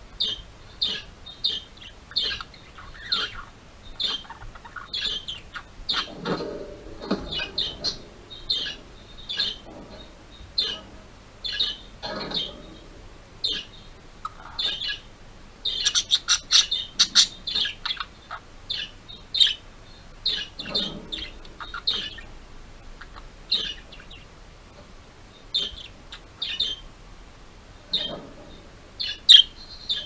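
Pet budgerigar chirping in short, high calls about once or twice a second, mixed with a few stretches of lower chatter: contented budgie contact calls. About halfway through comes a quick run of sharp clicks.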